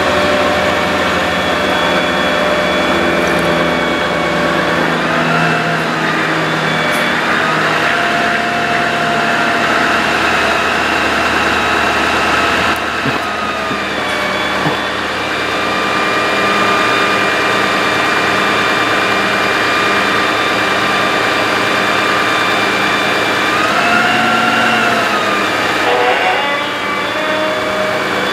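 A 2010 Dodge 5500 bucket truck running with its PTO hydraulic pump engaged while the ETI aerial boom is operated. It makes a steady engine and pump hum whose pitch swells and falls a few times as the boom moves.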